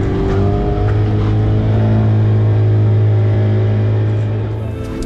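Outboard motor running at a steady high speed, driving a small RIB boat, its drone holding an even pitch.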